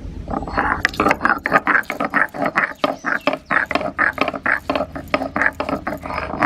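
Stone roller grinding garlic, ginger and green chillies on a flat stone slab (sil-batta), in quick repeated crushing strokes about three or four a second, starting just after the beginning.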